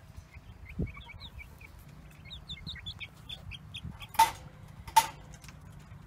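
Young Americana, Rhode Island Red and New Hampshire Red chicks cheeping in quick, short high peeps. Two sharp knocks come about a second apart near the end.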